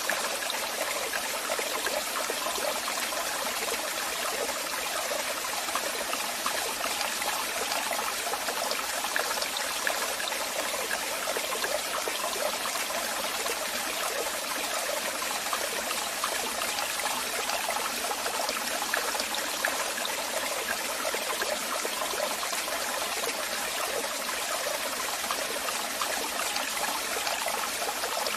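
Waterfall: falling water splashing steadily, a constant rushing hiss with no breaks.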